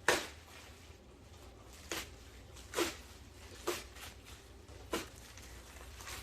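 Packaging being torn open by hand: five short, sharp rips, the first the loudest, the others about a second apart.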